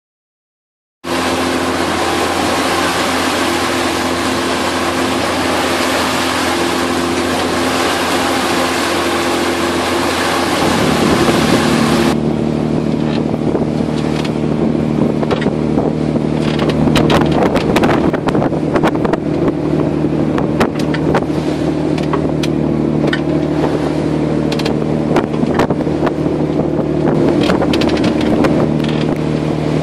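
Steady drone of a Nordhavn 40 motorboat's diesel engine heard on deck under way, over a rush of wind and sea. About a third of the way in the sound changes abruptly, with less hiss and wind gusting on the microphone.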